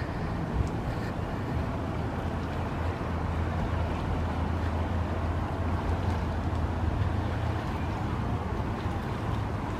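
Steady low hum of an idling engine, such as a moored narrowboat's diesel, with even outdoor background noise over it.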